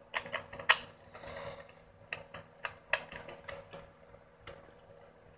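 Scattered sharp plastic clicks and taps from an action camera's clear housing being handled and fitted onto a clamp mount, several quick ones about a second in, then a few more spread out.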